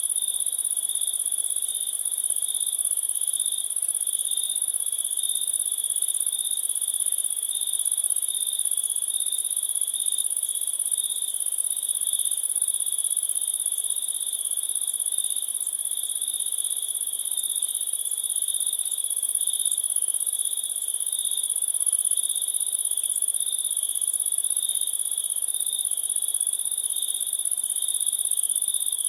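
Crickets chirping in a continuous chorus: a high, steady trill over a lower, pulsing chirp, with no pauses.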